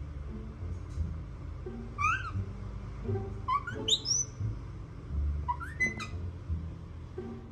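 Baby monkey giving short, high-pitched squeaks in a few bouts, each squeak rising and falling in pitch, over a low rumble with soft knocks.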